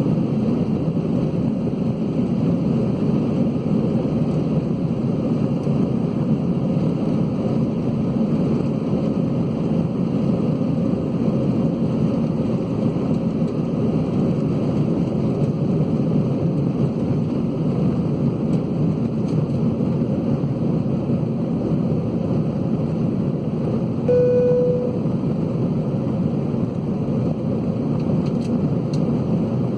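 Steady rumble of Airbus A320-211 cabin noise from the engines and airflow. A short single tone sounds once about 24 seconds in.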